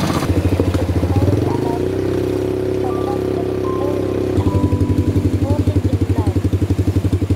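Quad bike (ATV) engines running at low speed with a fast, even putter. The pitch and pulse shift abruptly about two seconds in and again a little past four seconds.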